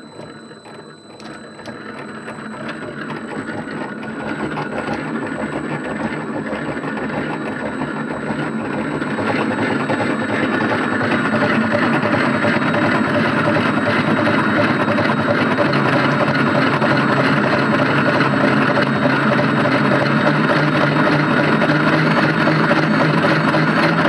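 LG washing machine motor, fed from a variable-frequency drive, starting up and spinning up a toothed drive ring that turns six small generators at once. The noisy mechanical running sound grows louder through the first ten seconds or so as the drive ramps up the speed, then holds steady.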